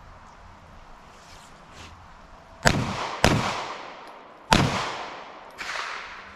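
Three loud pistol shots, the first two about half a second apart and the third about a second later, each followed by a decaying echo, then a fainter fourth report near the end.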